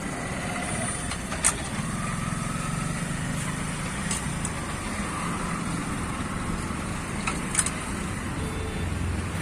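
Steady rumble of motor traffic and engines, broken by a few sharp metallic clinks from the wheel spanner as the spare wheel's nuts are tightened. The two loudest clinks come about one and a half seconds in and near the end.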